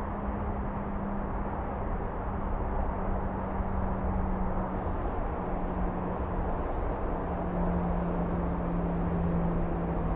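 Steady outdoor background rumble with a low droning hum, like distant motor traffic. The hum dips slightly in pitch about two-thirds of the way through.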